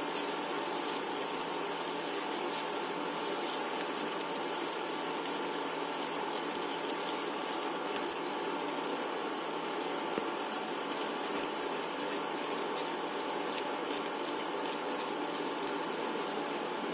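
Steady even hiss from a running induction cooktop, with a few faint taps from a silicone spatula stirring thick semolina dough in the pan.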